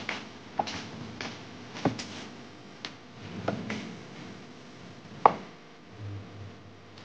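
Irregular knocks and taps of a plastic mixing bowl being handled and set on a wooden shelf, with the soft sound of hands mixing and kneading flour dough in it.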